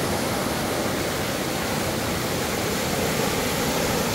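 Steady rushing of a river in flood, swollen by heavy rain: a continuous, even noise with no breaks.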